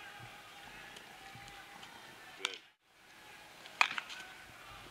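A bat cracks against a baseball about four seconds in, the loudest sound, with a few quick clicks after it, as a ground ball is hit to the infielder. A softer sharp knock comes about two and a half seconds in, just before a brief dropout in the sound.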